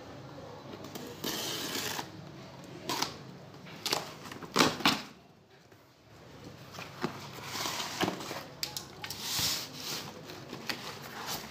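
Cardboard shipping box being slit open with a box cutter and its flaps pulled back: cardboard and packing tape scraping and rustling, with a few sharp snaps near the middle.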